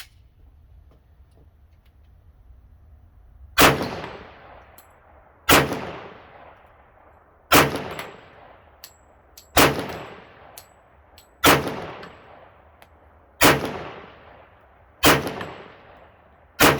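A 1911 pistol in .45 ACP firing eight slow, evenly paced shots about two seconds apart. Each is a sharp crack with a trailing echo. It feeds and fires ball ammo from a Wilson Combat 47D magazine without a malfunction.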